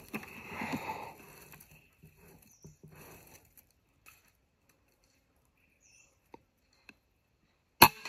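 Rustling handling noise as the PCP air rifle is swung onto the target, then, just before the end, a single sharp crack of the air rifle firing.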